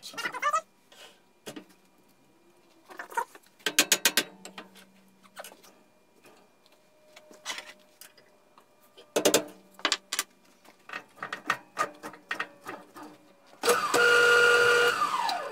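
Scattered clicks and knocks as a cedar log is fitted onto a wood lathe. Near the end the lathe's motor starts with a steady whine, spins the log for about a second, then winds down, its pitch falling.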